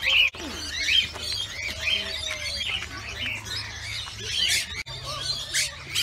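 A flock of aviary birds, cockatiels among them, chirping and calling at once in a busy, overlapping chatter.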